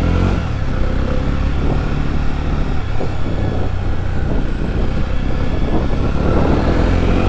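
Jawa 42 2.1's 293 cc single-cylinder engine running steadily as the motorcycle is ridden, with a sport-bike-like exhaust note. It gets slightly louder near the end.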